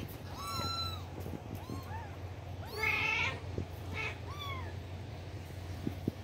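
Kittens mewing: four or five short, high-pitched mews that rise and fall in pitch, the loudest about three seconds in.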